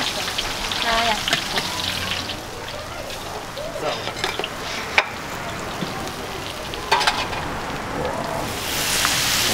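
Chunks of carp sizzling in hot oil in a wok as they are scooped out with a skimmer, with a couple of sharp clicks along the way. Near the end the hiss swells louder as garlic water meets the freshly fried fish.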